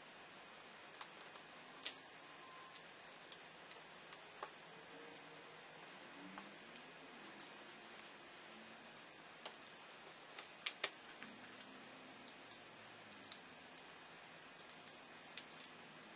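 Lego bricks clicking as they are handled and pressed together, in irregular sharp clicks over a quiet background, the loudest about two seconds in and again near eleven seconds.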